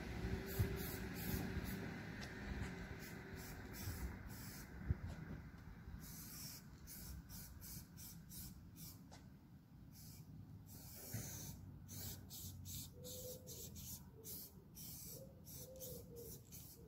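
Aerosol spray-paint can hissing in many short bursts in quick succession, the strokes of a graffiti piece being painted, thickest from about six seconds in. A low rumble at the start fades away over the first few seconds.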